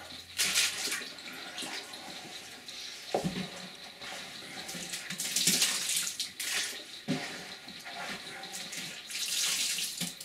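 Water streaming and splashing back into a plastic tote as handfuls of soaked granulated stone wool grow medium are wrung out, in three spells: about half a second in, around five to six seconds, and near the end. A couple of dull knocks come in between.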